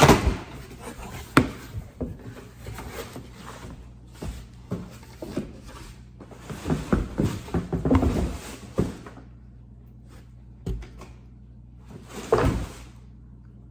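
A cardboard shipping box being opened by hand: tape strips pulled off and flaps bent back, with repeated knocks, scrapes and rustling of cardboard, then a boxed item lifted out. The handling is busy for about nine seconds, then only a couple of single knocks follow.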